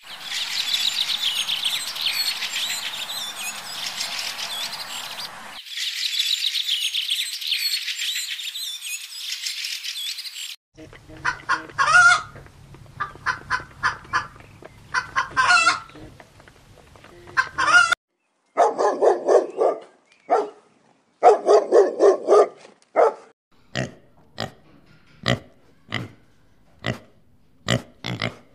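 A dense, high chorus of chirping insects for about ten seconds. Then chickens clucking in short calls, followed by a few louder, longer squawks. Near the end comes a run of short, sharp frog calls.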